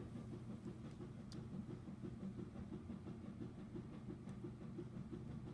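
A faint, steady low hum in the background, with a light click just over a second in.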